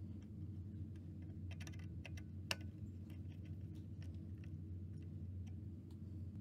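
Small clicks and taps of a screwdriver and crimped wire terminals on a screw terminal block as wires are fastened. There is a cluster of clicks about one and a half to two seconds in and a single sharper click about half a second later, over a faint steady low hum.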